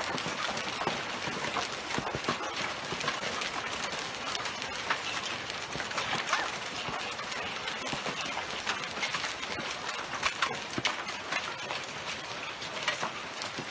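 Hailstones pelting a swimming pool and the paving around it: a dense, irregular clatter of hard hits and splashes.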